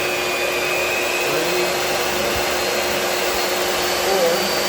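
Vevor 1550 W magnetic drill press motor running free with no load, a loud steady whine as it is stepped through its speed settings.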